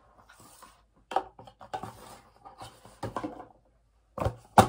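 Small cardboard product boxes being handled, slid and set down on a stone countertop: a run of short scrapes, rustles and light taps, ending with a sharp knock about four and a half seconds in.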